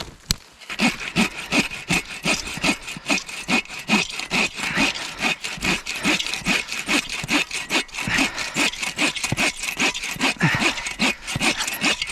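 Hand saw cutting through dry dead wood, in steady back-and-forth strokes of about two to three a second.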